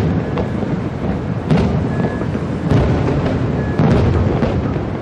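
Aerial fireworks shells bursting: four deep booms about a second apart over a continuous low rumble.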